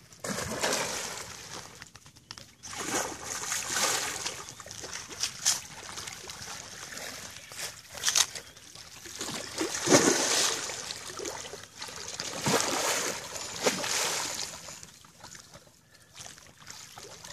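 A hooked arapaima thrashing at the water's surface, splashing and churning the water in a series of surges, the biggest splash about ten seconds in.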